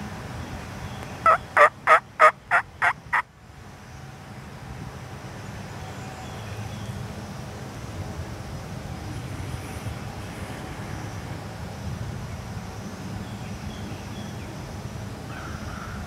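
Osceola wild turkey gobbler gobbling once about a second in: a loud, rattling run of about seven quick notes lasting about two seconds. Low, steady background noise follows.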